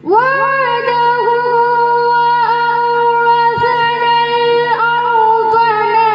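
A girl's voice in melodic Quran recitation (qirat) through a microphone, holding long, drawn-out notes with slight wavering in pitch, briefly broken about two and a half and about five seconds in.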